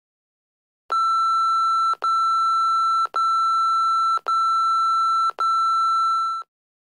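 Television colour-bar test tone: a steady high-pitched beep sounding five times, each about a second long with brief breaks between, starting about a second in and fading out on the last one.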